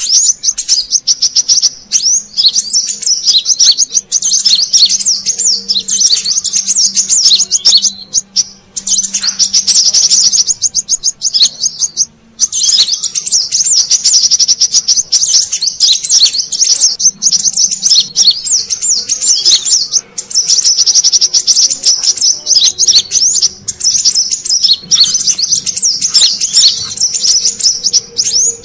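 Sunbird (kolibri kelapa) lure call: loud, rapid high-pitched twittering chirps in long runs, broken by a few short pauses.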